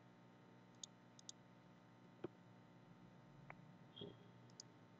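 A handful of faint, sharp computer mouse clicks, a couple of them in quick pairs, over quiet room tone.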